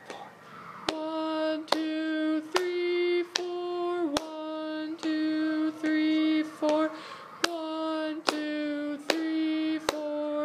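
A man counts a rhythm aloud in a sing-song chant held mostly on one pitch while clapping it, with a sharp hand clap at the start of each note, about one a second. This is the count-and-clap way of learning a beginner band exercise's rhythm: a clap starts a note, and the hands slide to hold it.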